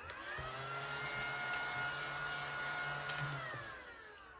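A small electric motor spins up with a rising whine, runs steadily for about three seconds, then winds down with a falling whine near the end.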